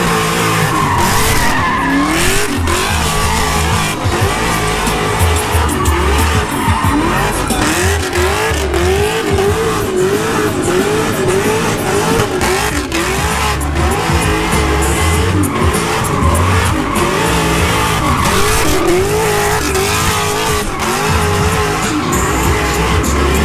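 Pontiac G8 sedan doing donuts: the engine revs up and down about once a second as the driver works the throttle, over continuous squealing of the rear tires spinning and sliding on the asphalt.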